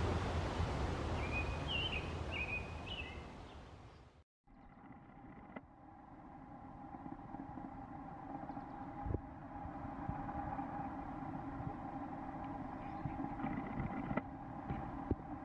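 Steady rushing outdoor noise with a few short, high bird chirps about two seconds in. It cuts off abruptly about four seconds in, and a quieter steady low hum follows, with a click or two.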